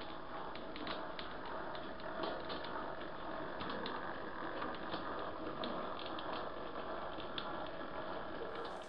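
Model railway locomotive running along the track: the steady mechanical hum of its small motor and gears, with frequent light clicks from the wheels on the rails.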